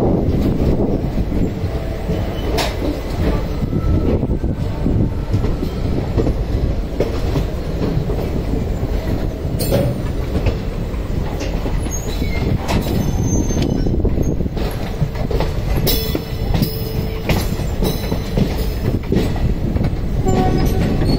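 Passenger train running out of the station, heard from the coach: a steady rumble of wheels on rail, with sharp clicks as the wheels cross rail joints and points, more of them in the second half, and brief thin wheel squeals now and then.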